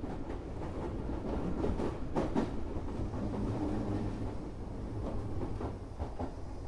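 Running sound of an Odakyu 8000 series electric train car renewed with IGBT-VVVF control: a steady rumble of wheels on rail, with a cluster of rail-joint clicks about two seconds in and a few more near the end.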